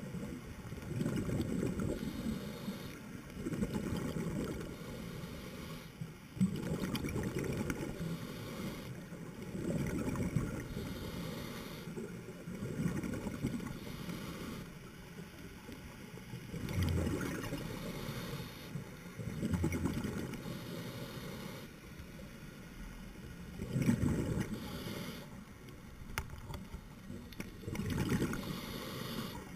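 A scuba diver breathing through a regulator, recorded underwater: muffled bubbling of exhaled air that swells and fades about every three to four seconds.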